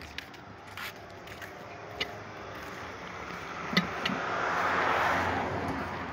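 Compressed air hissing through an air hose into a truck tyre, swelling louder about four seconds in and easing off near the end, with a few sharp metallic clicks.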